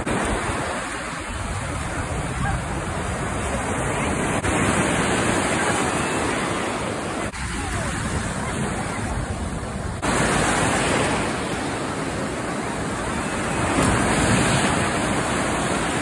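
Ocean surf rushing and breaking in the shallows, a steady wash of foaming water that swells louder several times.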